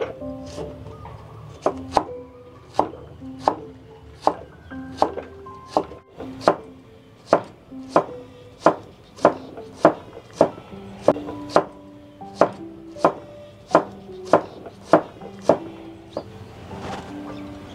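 Cleaver chopping carrots on a thick wooden chopping block, sharp even chops about one and a half a second, stopping a couple of seconds before the end. Background music plays under it.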